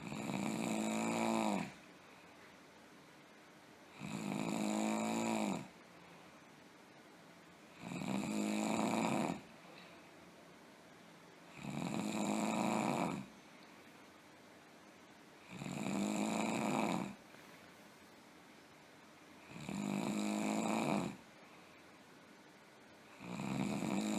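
A person snoring heavily: one long snore about every four seconds, each lasting about a second and a half, with quiet breathing-room noise between.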